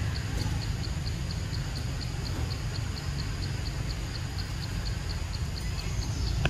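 Outdoor forest ambience: a steady low rumble with a faint, high, even ticking about four times a second.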